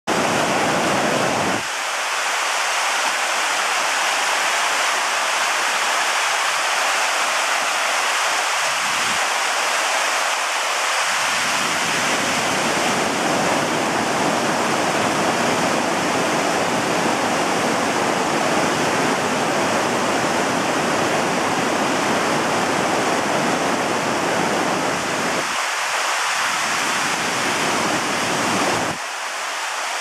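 Mountain stream rapids: white water rushing over rocks with a loud, steady rush.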